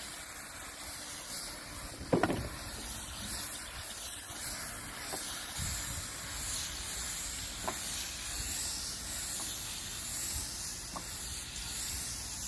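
Garden hose spray nozzle spraying water onto wooden deck boards: a steady hiss of spray and splashing, rinsing off the sanded cedar. A brief higher-pitched sound cuts in about two seconds in.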